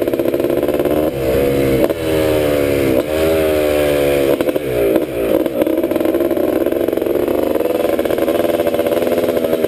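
1986 Honda ATC250R's two-stroke single-cylinder engine running hard as the three-wheeler is ridden, the engine note dropping and climbing again several times in the first five seconds, then holding fairly steady.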